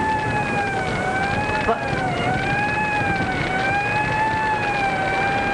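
Fire engine siren wailing, its pitch rising and falling slowly and evenly, over a steady rushing background noise.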